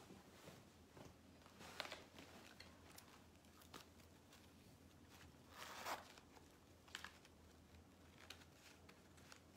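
Near silence with a few brief, faint rustles and handling noises, the loudest about six seconds in.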